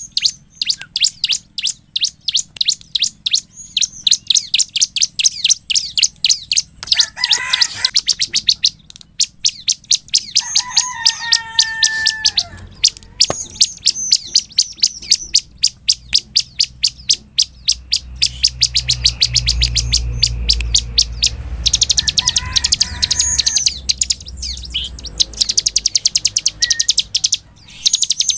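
Bar-winged prinia (ciblek) in full song: a fast, unbroken string of sharp high chips, several a second, with a few lower whistled phrases breaking in now and then.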